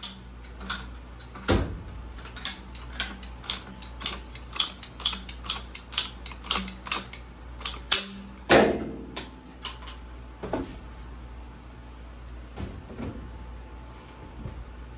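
Hand tools at work: a quick series of sharp clicks and knocks, about two or three a second, with one louder ringing knock just past the middle, then thinning out. A steady low hum runs underneath.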